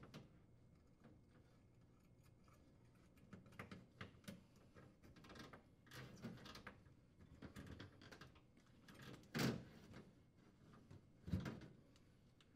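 Faint handling noise as wires and flexible metal conduit are fed into a steel junction box: scattered light rustles and clicks, with two short knocks about nine and eleven seconds in.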